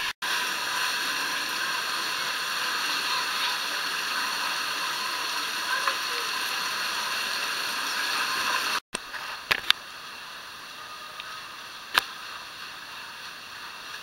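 Rushing water of a waterfall cascade, heard close as a loud, steady hiss. It breaks off abruptly about nine seconds in, giving way to a quieter steady water noise with a few sharp clicks.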